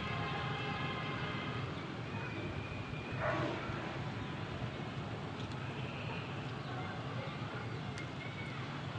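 Wood fire burning in a mud chulha under an iron griddle, over a steady low background hum, with faint distant voices and a brief louder sound about three seconds in.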